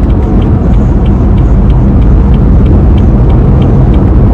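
Loud low rumble inside a car, with a faint regular ticking about three times a second.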